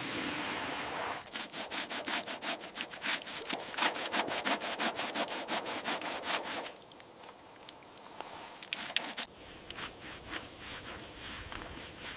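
Rapid back-and-forth rubbing strokes over a surface, several a second, for about five seconds. The strokes then turn slower, quieter and scattered.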